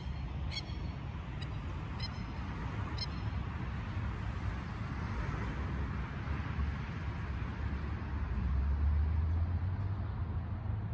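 Outdoor ambience on a golf course: a steady low rumble, with a few short bird calls in the first three seconds.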